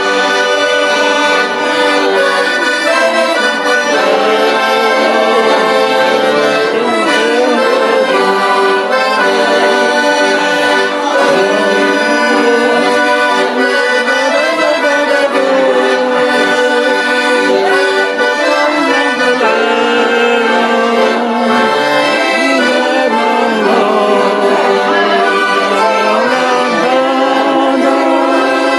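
Piano accordion playing a dance tune, a continuous melody over held lower notes.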